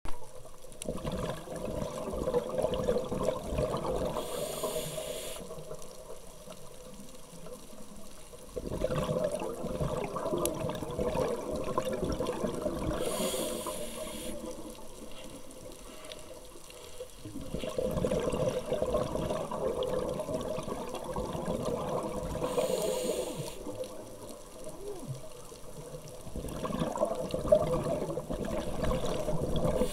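Scuba diver breathing through a regulator underwater: a short hiss of inhaled air about every nine seconds, with long stretches of bubbling exhaled air between them.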